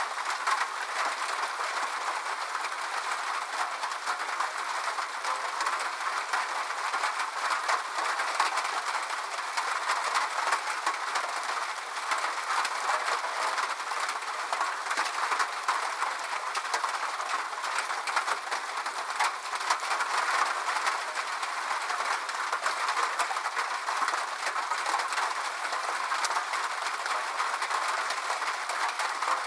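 Rain falling steadily on a roof: a dense, even patter of drops that keeps up without a break.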